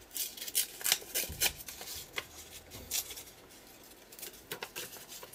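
Paper being torn and handled by hand: a run of crisp rustles and crackles, busiest in the first three seconds and thinning out after that.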